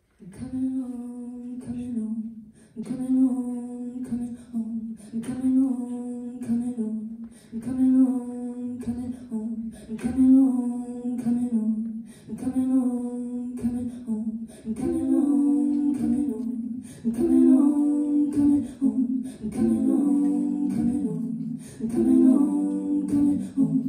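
A woman singing a short wordless phrase a cappella, repeated over and over. About fifteen seconds in a second, higher vocal part is layered on top of the repeating phrase, as with a looper.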